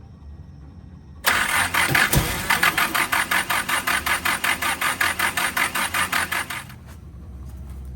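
The 500 hp Mitsubishi Starion's starter motor cranking the engine, with an even rapid pulsing of about six beats a second. It starts about a second in and stops after roughly five seconds.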